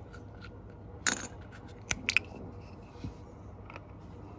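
A hand cutting tool snipping red heat-shrink tubing to size: a few short, sharp clicks and snips, one about a second in and a quick cluster around two seconds in, with fainter ticks after.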